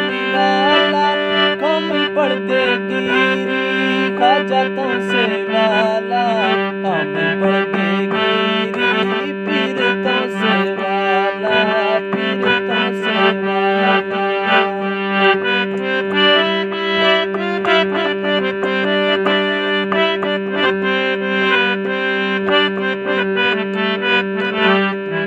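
Instrumental break of a Balochi folk song: a melody over a steady held drone, with a regular drum beat and no singing.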